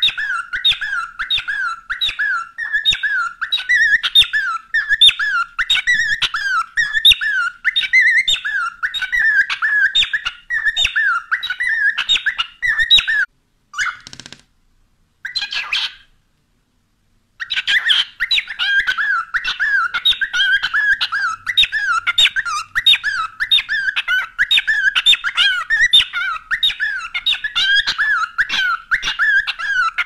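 Cockatiel chirping over and over in a rapid, even rhythm, falling silent for about four seconds a little before the middle, then starting again.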